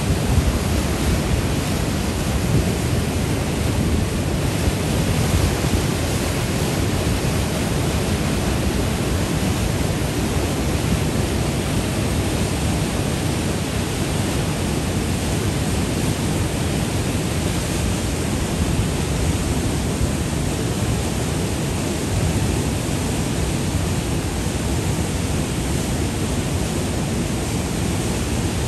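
Fast river water rushing through shallow rapids: a steady, unbroken rushing noise, heaviest in the low end.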